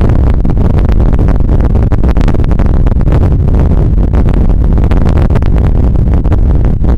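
Storm wind buffeting the microphone: a loud, steady rumble with gusty crackle, with heavy surf breaking underneath.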